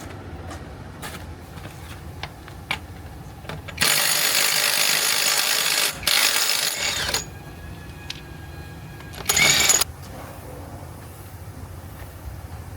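A low steady mechanical rumble with scattered clicks and knocks, broken by three loud bursts of hissing noise: two long ones about four and six seconds in, and a short one near the end.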